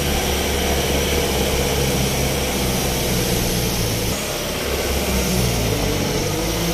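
Loaded truck's engine running steadily under way, heard from inside the cab, with a brief dip in its low hum about four seconds in.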